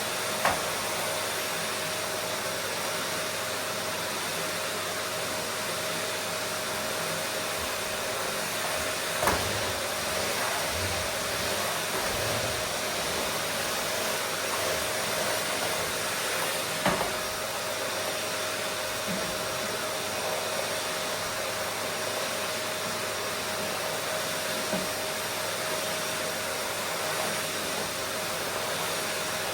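Vacuum cleaner running steadily: an even rush of air with a steady whine, and three short knocks, about half a second, nine seconds and seventeen seconds in.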